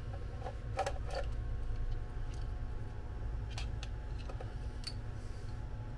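Hands working a plastic cable connector and wires of an electric scooter's hub motor: a few small, separate clicks and rustles, over a steady low hum.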